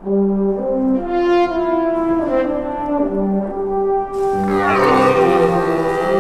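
Orchestral music with a French horn melody. From about four seconds in, a red deer stag roars over it: a rutting call, rough and wavering.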